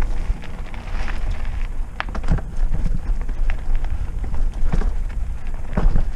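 Trek Roscoe 6 mountain bike riding fast down a dirt trail: tyres rolling over dirt and roots with a steady crackle, and sharp knocks and rattles from the bike over bumps, several times. Low wind rumble on the camera microphone runs under it.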